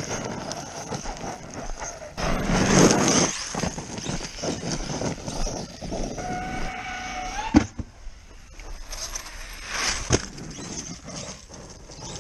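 ARRMA Outcast 8S electric RC truck running on dirt, with bursts of tyre and ground noise. About six seconds in, a steady motor whine rises in pitch and ends in a sharp impact, like a landing. A smaller knock follows about ten seconds in.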